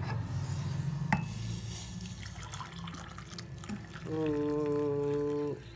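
Water sloshing and pouring from an aluminium pan, with a sharp click about a second in. Near the end, a steady pitched drone lasting about a second and a half is the loudest sound.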